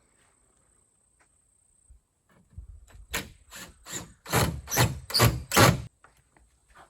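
Footsteps close to the microphone: a run of about seven quick, heavy steps, roughly two a second, starting a couple of seconds in and stopping abruptly.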